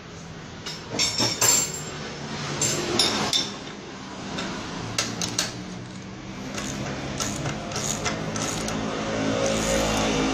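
Metal tool parts clinking and knocking together as a crankshaft bearing puller is fitted, a run of sharp clinks in the first half. From about eight seconds in a steady low mechanical hum grows louder.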